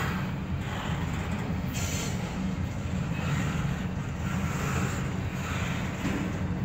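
Double-stack intermodal freight train rolling past at close range: a steady rumble of steel wheels on rail, with recurring swells of rattle and hiss as the well cars go by.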